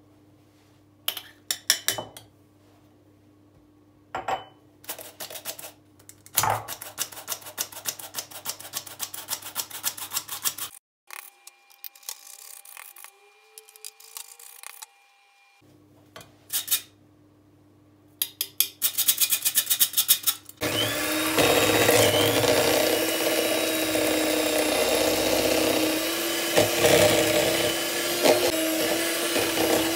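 A hand-cranked flour sifter rattling in fast, even ticks as it is worked, in two spells, after a few knocks at the start. About two-thirds of the way through, an electric hand mixer starts and runs steadily, the loudest sound, its beaters whipping butter until creamy.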